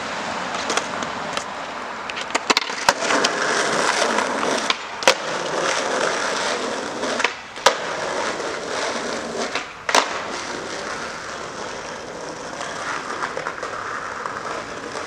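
Skateboard wheels rolling on rough asphalt, broken several times by sharp clacks of the board hitting the ground.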